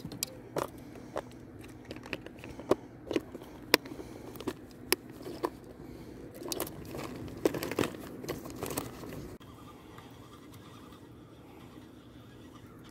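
Clear plastic tackle box of soft-plastic lures being handled: a string of sharp plastic clicks and knocks with rustling and scraping as it is shut and packed into a bag. The clicking stops about nine seconds in.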